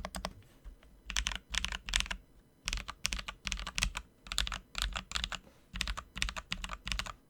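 Kemove Snowfox mechanical keyboard with lubed and filmed Holy Panda tactile switches and DSA keycaps being clacked in quick bursts of several keystrokes, with short pauses between bursts, stopping just before the end.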